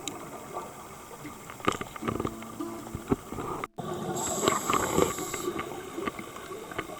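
Background pop music in an instrumental passage between sung lines, with soft held notes and light percussive clicks. It drops out for an instant just before the middle.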